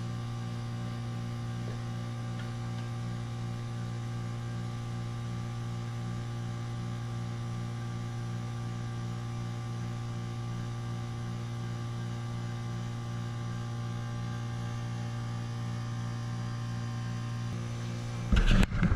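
WaterFurnace geothermal heat pump running in heating mode, partway through a refrigerant charge: a steady low compressor hum with a faint, regular pulsing above it. A burst of louder rustling comes near the end.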